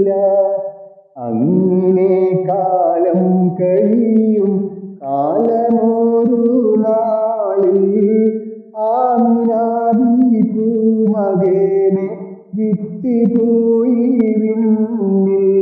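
Music: a song sung in phrases of a few seconds each, broken by brief pauses about every four seconds.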